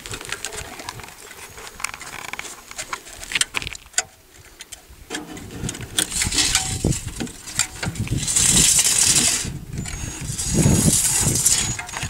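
Thin sheet-metal duct collar being handled and worked by hand, its fins bent out to hold it in place: scattered light metallic clicks and taps, with two spells of scraping, rasping noise about eight and ten and a half seconds in.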